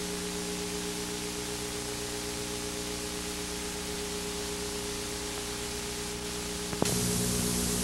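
Steady analog videotape hiss with a low electrical hum under it. Near the end a click, after which the hiss and hum get louder.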